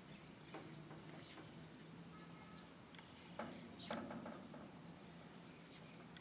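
Small birds calling faintly: several short, very high, thin notes and quick downward-sliding chirps, with a couple of soft knocks a little past the middle and a faint steady low hum underneath.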